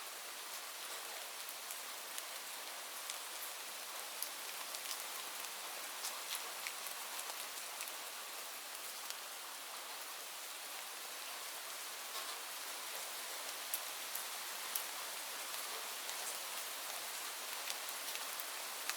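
Steady rainfall: an even hiss of rain with many separate drops ticking on hard surfaces.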